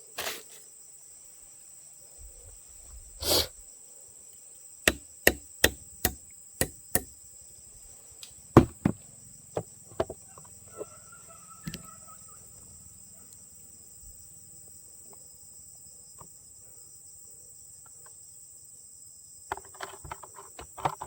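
About a dozen sharp, irregular knocks on wood, most of them in the first half, as a plaque is fixed onto a tree on nails. A steady high-pitched insect chorus of crickets runs underneath.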